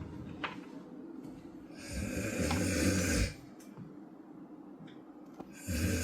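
A man snoring heavily in his sleep: one long rasping snore about two seconds in and another starting near the end, with quiet breathing between.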